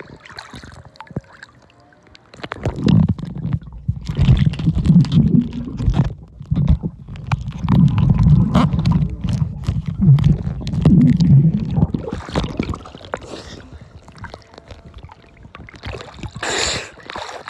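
Pool water heard with the microphone underwater: muffled low rumbling and gurgling with scattered clicks, loud through the middle of the clip. A short splash near the end as it breaks the surface.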